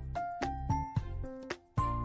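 Background music: a tune of short, sharply struck notes, a few a second, over a sustained low bass line.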